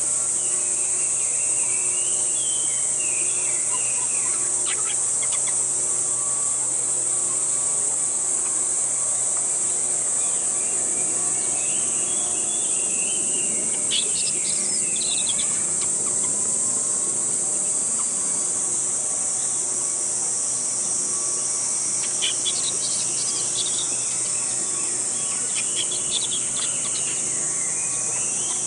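Steady high-pitched drone of insects, with a few short wavering high calls and clusters of chirps now and then.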